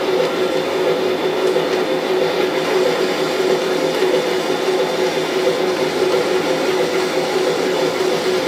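On30 model train running on its track: the small electric motor and gears give off a steady whir with a constant hum, along with the rolling of the wheels.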